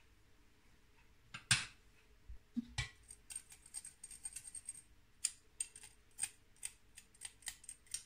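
A metal spoon knocking and scraping against a stainless-steel mesh sieve as matcha powder is pushed through it: a sharp knock about a second and a half in, then a run of quick, irregular metallic clicks with a faint high ring.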